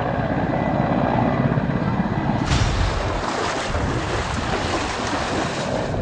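Helicopter flying overhead, its rotor beating steadily. About two and a half seconds in, the sound switches to a brighter, hissy outdoor wash of noise with faint voices.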